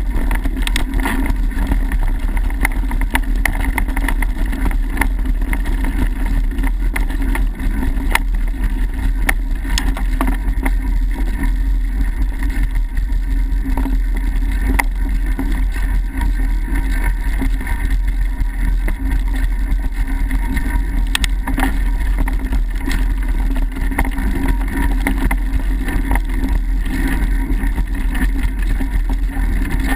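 Mountain bike rolling fast over a dirt singletrack, heard through the bike's own camera mount: a steady, loud rumble of tyres and frame, with frequent small knocks and rattles as it runs over bumps.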